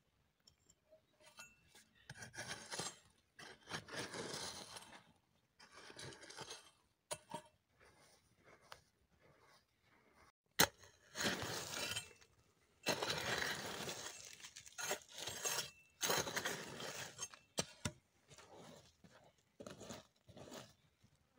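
Bare hands digging into dry, crumbly soil at a burrow, scraping and scooping out dirt in repeated strokes a second or two long, with a few sharp clicks.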